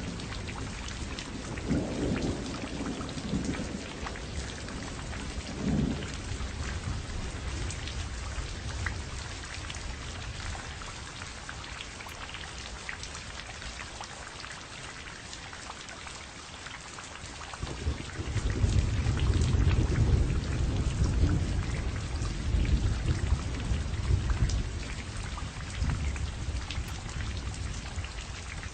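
Steady heavy rain with rolling thunder: short rumbles in the first few seconds, then a long, louder rumble of thunder starting past the middle and dying away near the end.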